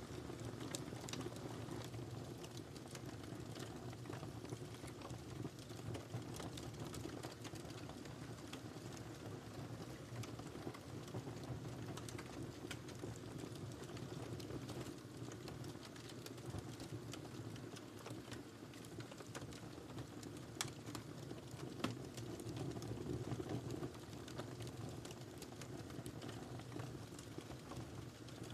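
Wood fire burning in a fireplace: irregular crackles and pops over a steady low rumble of the flames, with one louder pop a little past the middle.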